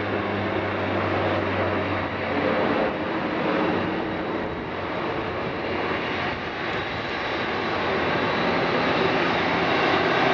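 Jet engine noise from a Boeing 747-8F's four GEnx turbofans: a steady, dense rush that swells slightly toward the end, with a low hum fading out about two seconds in.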